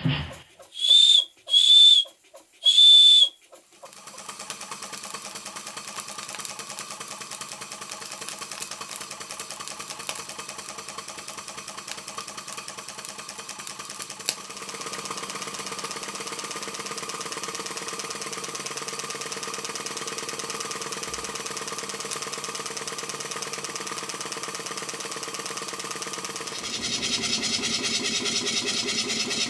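Three short blasts of a steam whistle, each holding one steady pitch, then small model steam engines running steadily on the bench with a rapid even beat. The running sound changes twice as the engine changes, the last being a model horizontal steam engine.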